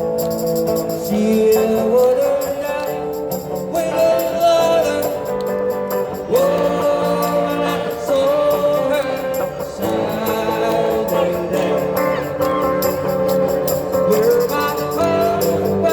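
Small live street band playing a song, with held melodic notes over a steady jingling beat.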